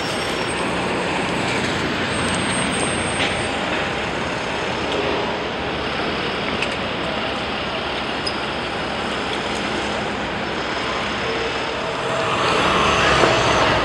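Steady city street traffic noise, a continuous rush of passing vehicles, growing somewhat louder near the end.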